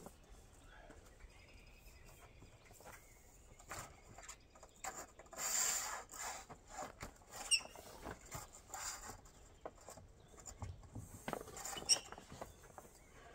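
A pop-up camper's roll-out awning being set up by hand: scattered clicks and knocks from its metal arms, with a short rustling rush about halfway through and a few light metallic ticks just after.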